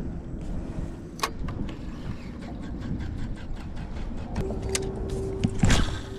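Wind and water noise on a small open boat, with scattered sharp clicks and a louder knock near the end. A steady low hum comes in about two-thirds of the way through.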